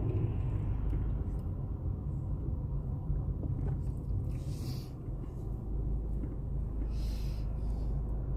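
Steady low rumble of a car in motion, heard from inside the cabin, with two brief hissy swells, one about halfway through and one near the end.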